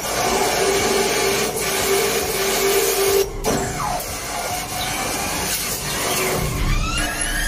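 CNC lathe turning a steel part, the tool cutting and peeling off curled chips with a steady tone. The sound briefly drops out about three seconds in, and a rising whine comes in near the end.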